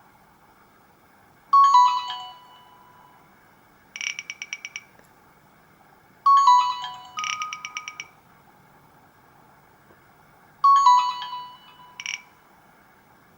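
Alcatel 2000X ringtone played through a Samsung GT-B2710 phone's loudspeaker. A short bright chime figure is followed by a rapid trill of repeated beeps, and the phrase sounds three times over a faint hiss.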